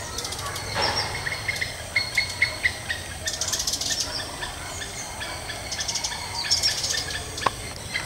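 Flycatcher nestlings begging in the nest: two bursts of rapid, high-pitched chirps, one around the middle and one near the end, with a run of short, lower notes before them.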